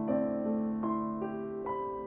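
Solo piano music, slow and gentle, with single notes struck about every half second over held lower notes.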